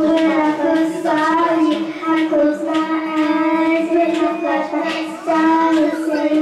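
A young girl singing into a microphone, her voice amplified through a loudspeaker, in long held notes.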